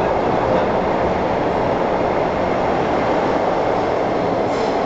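Hong Kong MTR Island Line M-Train running through an underground station at speed without stopping, a steady running noise of wheels on rails and traction motors heard from behind the platform screen doors.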